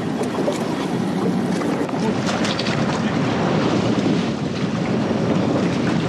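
A panga's outboard motor running at trolling speed, with wind buffeting the microphone and water rushing along the hull.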